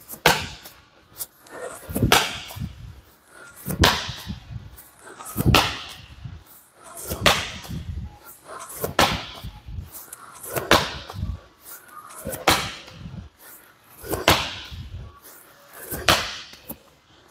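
Slam ball thrown down hard onto a gym floor again and again: about ten heavy impacts, evenly paced roughly every two seconds.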